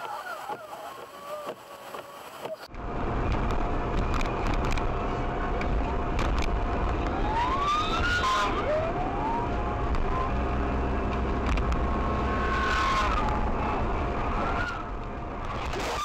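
Steady road and engine rumble inside a car driving on a highway, starting suddenly about three seconds in. Near the middle, a police siren gives a couple of short rising wails.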